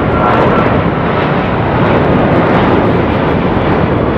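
Twin jet engines of a Boeing 777-200 at takeoff thrust: a loud, steady rushing noise.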